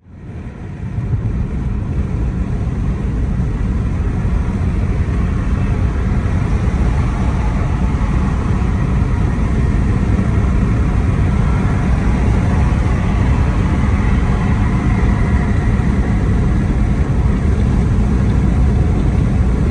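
Steady road and engine noise inside a car driving at highway speed, coming up over the first second and then holding level.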